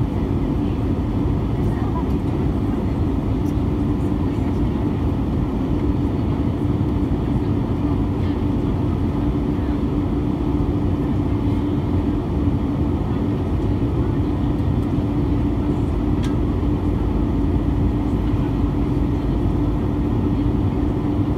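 Steady cabin noise of an Airbus A320 during its descent: the drone of the underwing jet engine and rushing airflow, with a steady low hum throughout.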